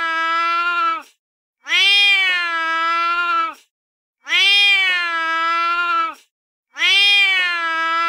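A recorded domestic cat meow from a sound app, played over and over. Each long, drawn-out call lasts about two seconds, and the identical call repeats about every two and a half seconds with a short silence between.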